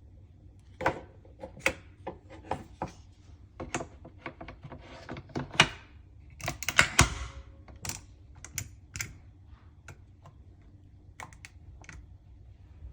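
A string of irregular plastic clicks and knocks, the sound of a capsule coffee machine's parts being handled. They come thickest and loudest about halfway through, along with a short rattling scrape.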